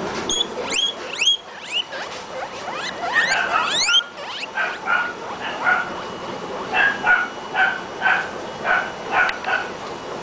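Several guinea pigs wheeking: a string of rising, whistle-like squeals in the first four seconds, then short squeaks repeating two to three times a second.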